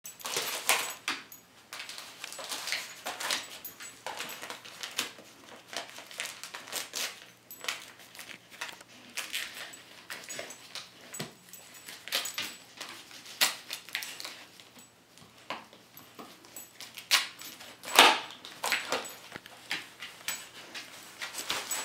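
A dog nosing and mouthing at a small gift-wrapped present, the wrapping paper crinkling and tearing in irregular crackles. The loudest crackles come about eighteen seconds in.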